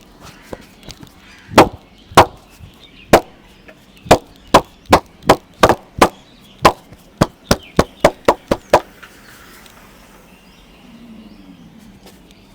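A barber's hands striking in a run of sharp slaps of percussive head massage, about seventeen in all. The first few come spaced out, then they come faster at about three a second, and they stop a few seconds before the end.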